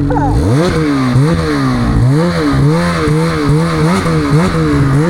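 Snowmobile engine revved hard about half a second in, then rising and falling over and over, about twice a second, as the throttle is worked.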